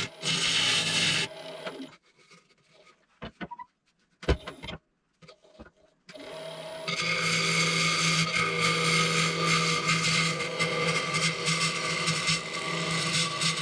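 Wood lathe running with a red cedar bowl blank being worked: a steady motor hum under rasping against the wood. It stops about a second in, a few knocks come in the quiet gap, and it starts up again at about six seconds.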